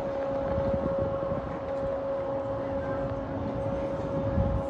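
Steady machinery hum from the cruise ship Le Dumont D'Urville moving slowly alongside, one constant tone over a low rumble, with wind buffeting the microphone.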